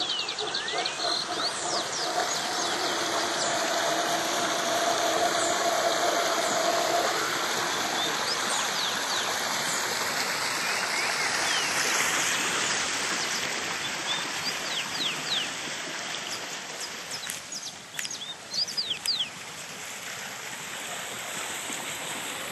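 Water of a small waterfall running steadily, with many small birds chirping over it. A low steady hum sounds under it for the first seven seconds or so.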